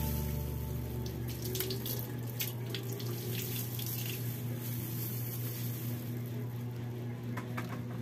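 Freshly grated coconut squeezed by hand in plastic gloves, with coconut milk trickling and splashing onto a metal tray and scattered small crackles. It is milk pressed out without adding water.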